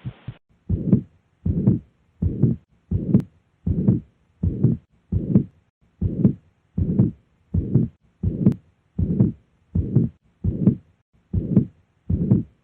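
Heartbeat heard through a stethoscope: a steady run of paired lub-dub heart sounds (first and second heart sounds) at about 80 beats a minute.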